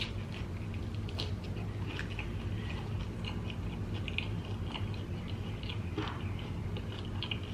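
Close-miked biting and chewing of a crunchy deep-fried egg roll: a bite at the start, then many small crisp crackles and mouth sounds. A low steady hum runs underneath.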